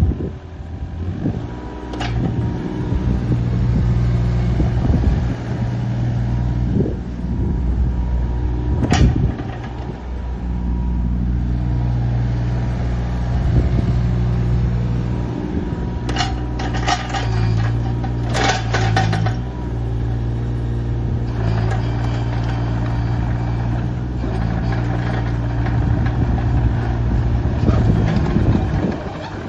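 Takeuchi TB216 mini excavator's diesel engine running steadily, with sharp knocks from the machine about 2 and 9 seconds in and a cluster of knocks and clanks between about 16 and 19 seconds.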